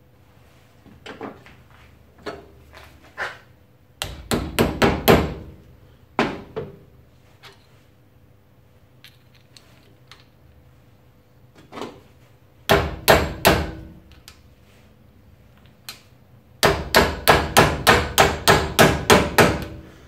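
Runs of quick mallet taps driving the small pin through a new piston and connecting rod of a Hitachi air suspension compressor held in a bench vise: about six taps a few seconds in, four more past the middle, then about a dozen near the end, with a few lighter knocks of metal parts being handled before them.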